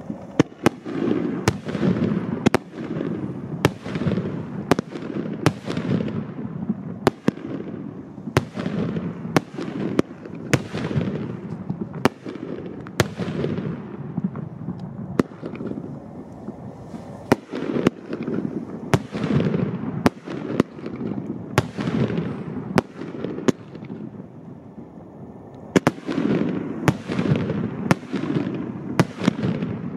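A Porky 25-shot consumer firework cake firing: a rapid string of sharp bangs, about one to two a second, each trailing off. There is a short lull a little after the middle, then a last quick run of shots near the end.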